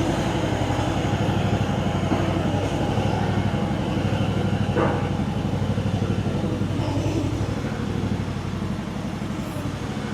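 Small Chinese 1-ton mini excavator running, its engine holding a steady, even pulse. It stops abruptly near the end.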